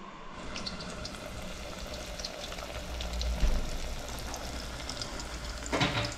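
Battered fish fillets deep-frying in hot oil, a steady sizzle full of small crackles and pops. A low thump comes about halfway, and a short louder burst of crackling comes near the end.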